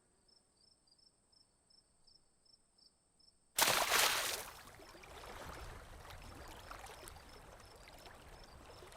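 Faint insect-like chirping with a thin high whine; about three and a half seconds in, a sudden loud rush of noise breaks in, fades within a second, and settles to a steady hiss with scattered clicks, like flowing water.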